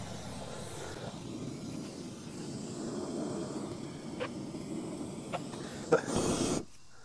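Propane torch flame burning steadily as it heats the end of black poly flex irrigation tubing to soften it for a barbed fitting. A few sharp clicks come near the end, and then the flame sound stops suddenly.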